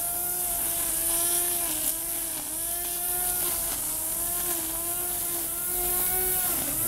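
Corded electric string trimmer running steadily while cutting grass, its motor pitch dipping briefly every second or two as the line bites into the grass.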